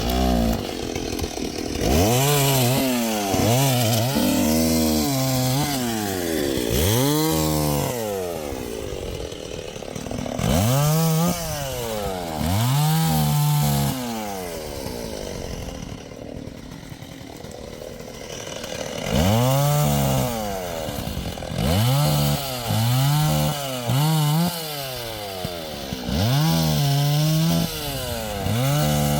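STIHL MS 381 two-stroke chainsaw revved up and eased back over and over in short bursts of about a second, the pitch rising and falling with each, as it works through wood. There is a lull of a few seconds midway.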